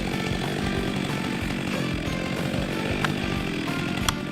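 Stihl MS 462 chainsaw, a 72.2 cc two-stroke engine, running steadily, with a few sharp clicks about three and four seconds in.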